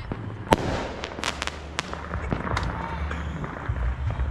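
Scattered firework and firecracker bangs: one sharp crack about half a second in, a quick cluster of pops a little after a second, then more spaced reports over a low background rumble.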